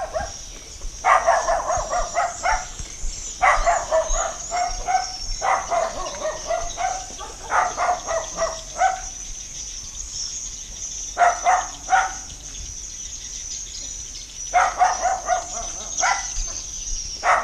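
A dog barking in repeated bursts of rapid barks every couple of seconds, with a longer pause midway, over a steady high-pitched drone of insects.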